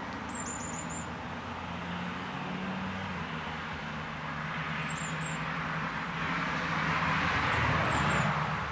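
Steady background road traffic noise, swelling for a couple of seconds near the end as a vehicle passes. Over it come three short runs of very high, thin, downslurred bird chips: one at the start, one midway and one near the end.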